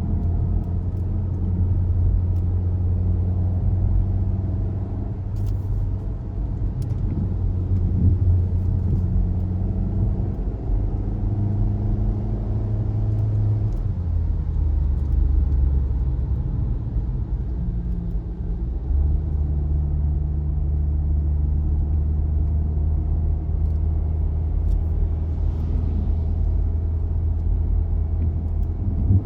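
Car driving: a steady low engine hum with road noise, its engine note shifting about halfway through and again a few seconds later.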